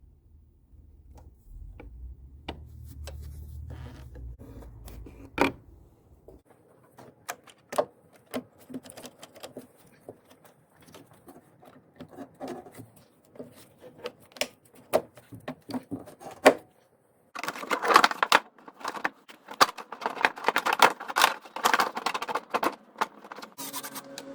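Scattered clicks and knocks of hand tools and parts being handled during car repair work. From about 17 seconds in come dense runs of rapid clicking, like a ratchet being worked.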